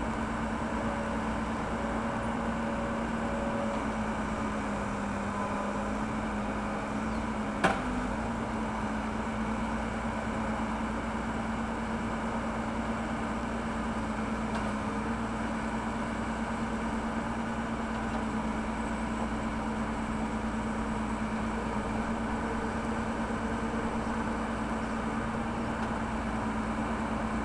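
Backhoe loader's diesel engine running steadily while digging, its pitch sagging briefly under load, with a single sharp knock about eight seconds in.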